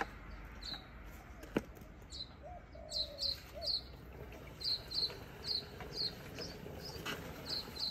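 A small bird chirping: short, high chirps repeating irregularly, one or two a second. A single sharp click sounds about a second and a half in.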